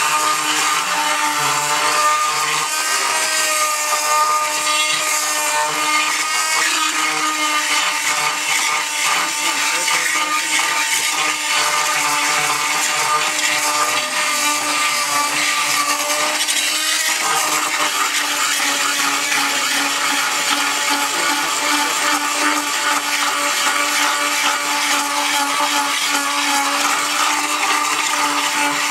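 Chicago Electric oscillating multi-tool fitted with a carbide tile and masonry blade, running steadily and grinding old mortar off the face of an antique floor tile: a constant buzz at one pitch over gritty scraping.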